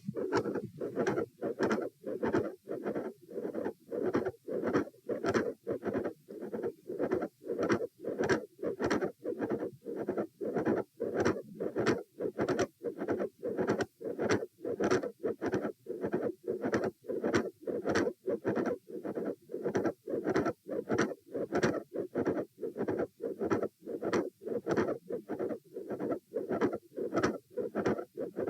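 Human heart sounds beating steadily, each beat made of several sharp, close-together clicks. The uploader tentatively reads them as a loud S1, a midsystolic click and a fixed split S2.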